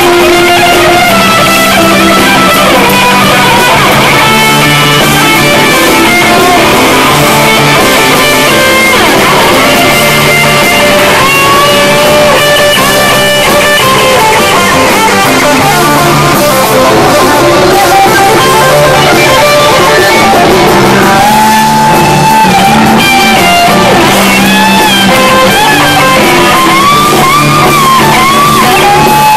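Live rock band with a lead electric guitar solo on a Les Paul–style guitar, played over bass guitar, drums and rhythm guitar. The lead plays long held notes and string bends, with a run of bent notes in the last third.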